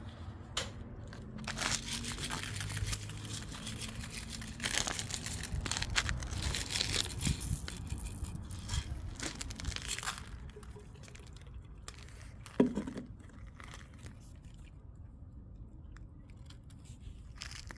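Plastic bag of dry cat food crinkling and crunching as it is handled, busiest in the first ten seconds. One sharp knock comes about twelve and a half seconds in, then it goes quieter.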